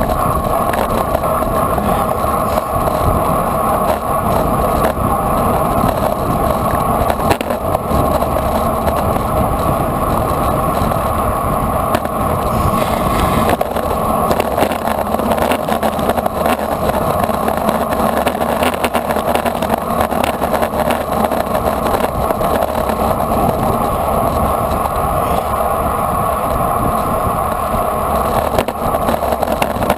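Road bicycle rolling at race speed: a steady rush of wind over the microphone mixed with tyre noise on asphalt.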